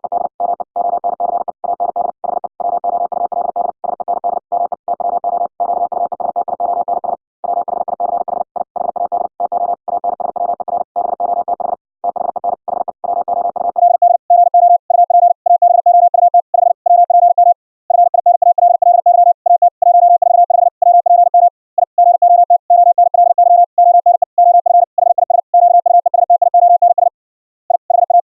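High-speed Morse code at about 60 words per minute: a single beep tone keyed on and off in rapid dots and dashes. For the first half it is the rough, noisy tone received over low-bit-rate (8k) Mumble VoIP audio. About halfway through it changes to a clean, louder tone, the code re-keyed by a ZamGate CW RE-Keyer.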